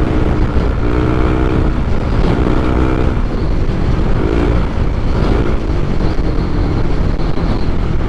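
Motorcycle riding sound picked up by a helmet-mounted mic: a steady engine and road rumble, with a few short pitched tones rising over it in the first half.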